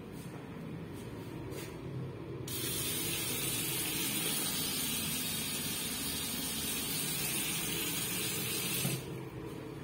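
Bathroom sink tap running: a stream of water from a chrome single-lever basin mixer splashing into the ceramic washbasin's drain, a steady hiss that starts suddenly about two and a half seconds in and is shut off suddenly near the end.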